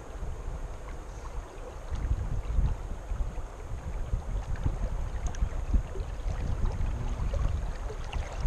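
River current flowing and sloshing around a camera held at the water's surface: a low, uneven rumble that surges and eases, with wind buffeting the microphone.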